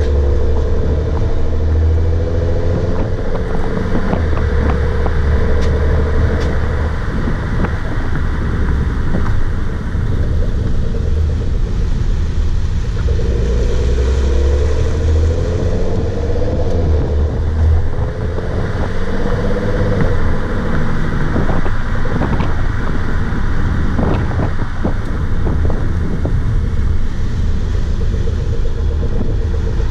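2015 Porsche Macan S on the move: steady road and engine rumble with the engine note rising and falling, broken by scattered sharp knocks. The knocks come singly early on and several close together past the middle, the strange banging noise the owner is chasing.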